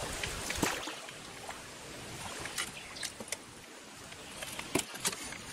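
Canoe being paddled on calm river water: paddle strokes splashing, with water trickling and dripping off the blade in short irregular drips.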